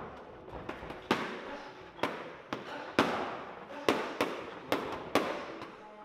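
Boxing gloves and a trainer's padded training sticks striking each other during pad work: about nine sharp smacks at an uneven, quick pace.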